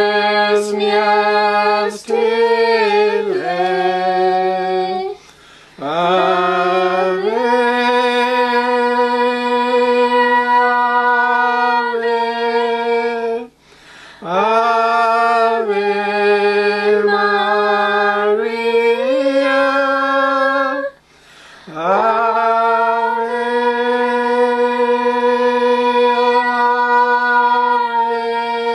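Unaccompanied hymn singing in the Carrier (Dakelh) language: slow phrases of long, held notes with short breaks for breath about every eight seconds.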